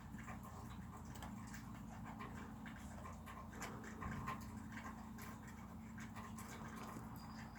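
A small cat making faint squeaky sounds, with scattered soft clicks and rustles over a steady low hum.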